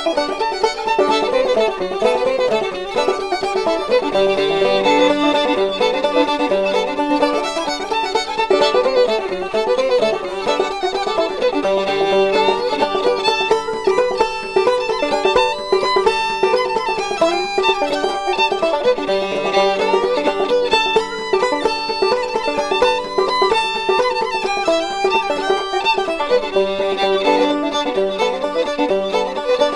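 Background music led by a fiddle.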